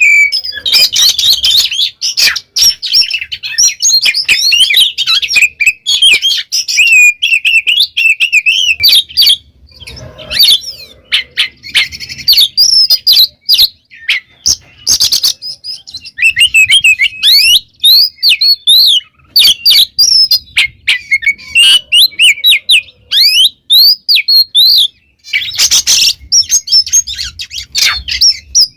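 Oriental magpie-robin (kacer) singing loudly and continuously: a fast, varied run of whistled phrases and chirps, broken by frequent short harsh, rasping notes.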